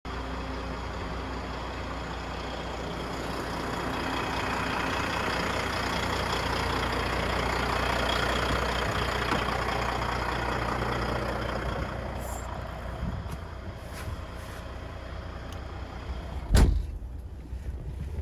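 Motor vehicle noise over a steady low hum, swelling and then fading, followed near the end by a single loud thump.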